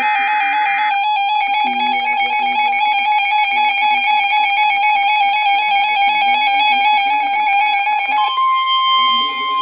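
Emergency Alert System broadcast tones. A harsh digital data burst lasts about a second, then a steady attention tone sounds, stepping up to a higher pitch near the end. Background music plays underneath.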